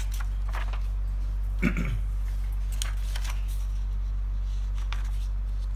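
Paper rustling and crinkling in short strokes as a sheet of a pad is turned over, over a steady low electrical hum. A brief low throaty vocal sound comes about a second and a half in.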